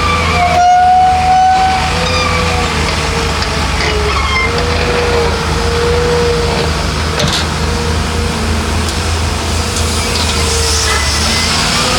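Heavy diesel earthmoving machinery running steadily, with a wavering whine over the deep engine drone.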